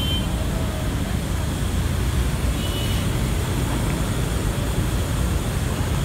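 Diesel bus engine running at low speed as the bus creeps forward: a steady low rumble.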